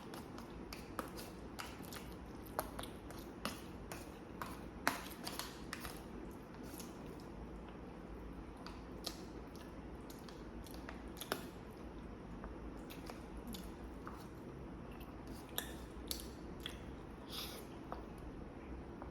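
Close-miked chewing and biting of food, with many scattered wet mouth clicks and smacks, the loudest about five seconds in, over a steady low hum.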